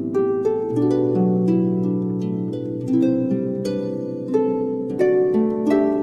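Instrumental background music: plucked, harp-like notes that ring on and overlap, over sustained lower tones, at an easy unhurried pace.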